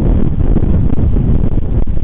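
Strong wind buffeting the nest camera's microphone: a loud, gusting rumble.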